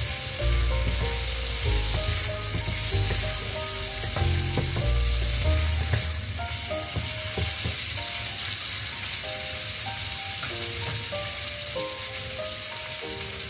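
Tomato wedges and garlic sizzling in hot oil in a wok, with a steady hiss. During the first half they are stirred with a wooden spatula, which gives low knocks against the pan.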